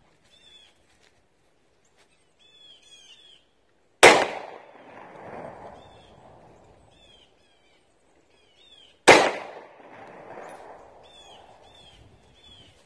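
Two shots from an SCCY CPX2 9mm pistol, about five seconds apart, each trailing off in a long echo. Birds chirp faintly between them.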